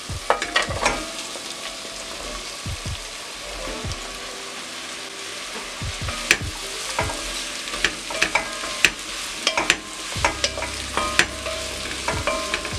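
Chopped courgettes going into a pot of onions frying in butter, then stirred with a wooden spoon: a steady sizzle under frequent knocks and clacks of the spoon and vegetable pieces against the pot.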